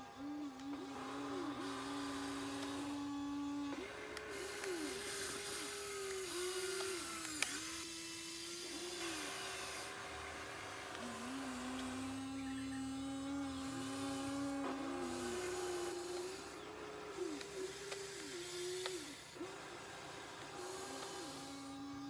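Small electric motors of an RC mini excavator whining as it works, the pitch dipping briefly and recovering many times and shifting between a higher and a lower steady whine, with a gritty gear hiss in stretches.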